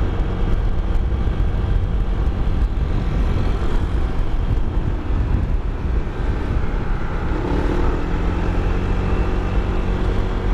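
Motorcycle engine running at cruising speed, under a heavy, steady wind rumble on the helmet-mounted microphone.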